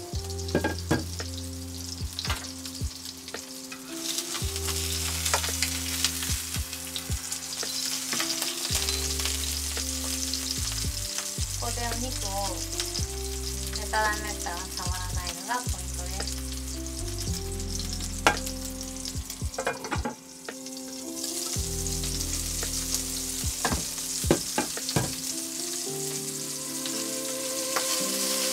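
Hamburger patty sizzling steadily as it fries in oil in a nonstick frying pan, with scattered sharp clicks from a slotted turner against the pan.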